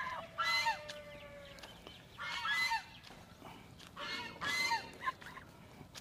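Domestic white geese honking: three bursts of short honks, each falling in pitch at the end, about two seconds apart.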